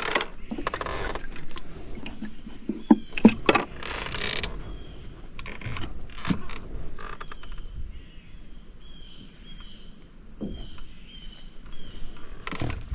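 Scattered knocks, clicks and rustles of fishing tackle being handled in a jon boat, busiest in the first few seconds. Later, a faint insect chirps in short repeated pulses.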